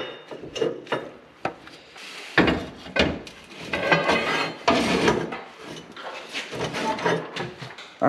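A 10-inch by 2-inch steel piece being test-fitted against a steel frame tube: irregular metal clanks and knocks, with a couple of longer scrapes of metal on metal.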